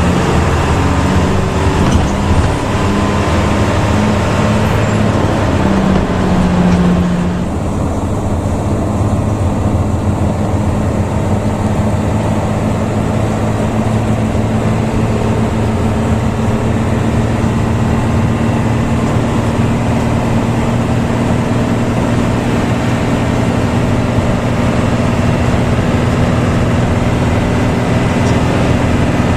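Intercity bus with a front-mounted engine running at a steady drone under road noise. About seven seconds in the engine note changes and the higher hiss drops away.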